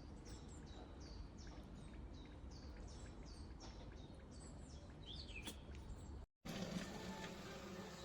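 A small bird calling, faint: a rapid string of short, high chirps, each dropping in pitch, about three a second. The chirps stop about five and a half seconds in, and a low steady hum follows.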